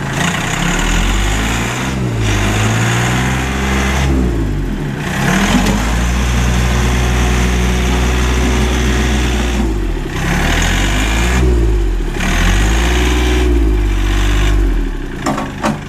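Kioti CK3510SE compact tractor's diesel engine running and revving up and back down several times as the hydrostatic drive is worked forward and in reverse with the linked pedals, the engine speed rising with the pedal. It holds high revs for a few seconds in the middle and drops back to idle near the end.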